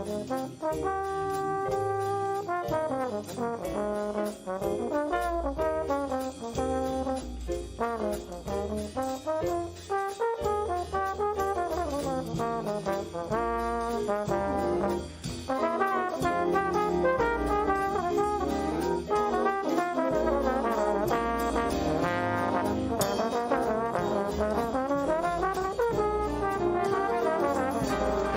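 Brass ensemble playing, with several instruments moving in parts together. It grows fuller and louder about halfway through.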